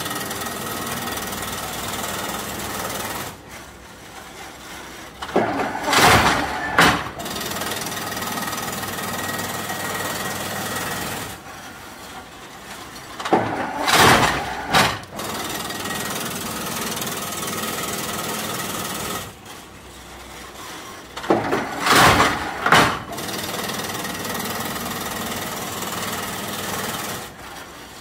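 Crimped wire mesh weaving machine running through its weaving cycle. About every eight seconds a few seconds of steady mechanical running give way to a short quieter pause, then two loud bursts of clattering knocks close together.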